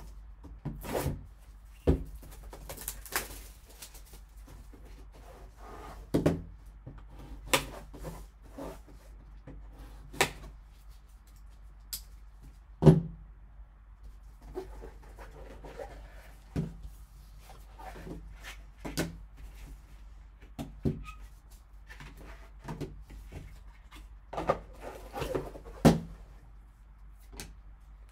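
Gloved hands opening a cardboard trading-card box and lifting out a card in a hard plastic case: scattered taps, knocks and scrapes of cardboard and plastic, the loudest knock about halfway through.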